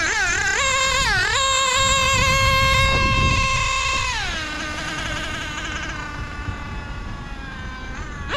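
Novarossi Mito .21 two-stroke nitro engine of a 1/8 GT RC car at full throttle: its high whine climbs in the first second and holds steady, then drops about four seconds in as the throttle is lifted. It settles to a lower steady note that grows fainter as the car moves away. The engine is on its first run and still needs tuning at idle and low end.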